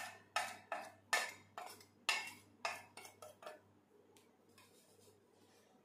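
Spices being scraped off a plastic plate into a steel mixing bowl: about ten quick scraping strokes in the first three and a half seconds, then quiet.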